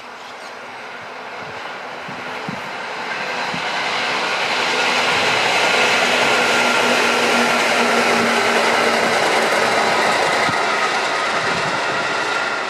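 Electric multiple-unit local train passing on the rails, wheels running over the track. It grows louder over the first five seconds and stays loud, with a thin steady whine over the rail noise.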